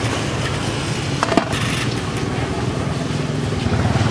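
An engine running steadily at idle, a low pulsing hum, with one sharp click about a second and a half in.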